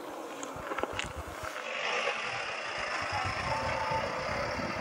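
A vehicle passing along a road: a steady rush of engine and tyre noise that swells about two seconds in, with low, uneven wind rumble on the microphone.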